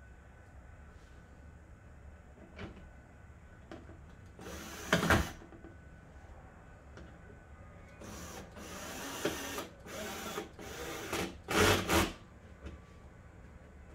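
Power drill running in a few short bursts: one about five seconds in, then a cluster of bursts over the last few seconds, the loudest near the end.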